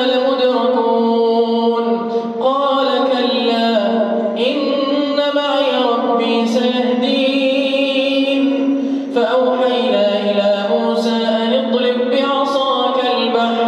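A man reciting the Quran in slow, melodic tajweed style. He holds long, ornamented notes across several drawn-out phrases.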